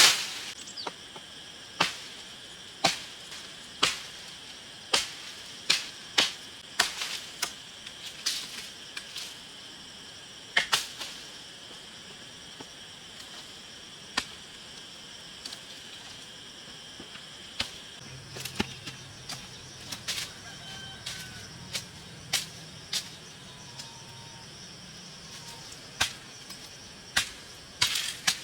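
Sharp knocks of a hand tool striking wood or bamboo, about once a second at first and then more scattered, over the steady chirring of insects.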